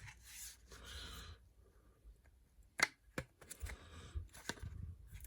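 Small rubber pieces being worked by hand onto a Kirby vacuum cleaner's parts: a faint rubbing for about the first second and a half, then a few scattered sharp clicks and dull taps.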